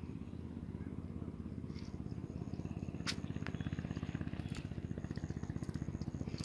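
A small engine running steadily with a fast, even chug, with a couple of sharp clicks about three seconds in.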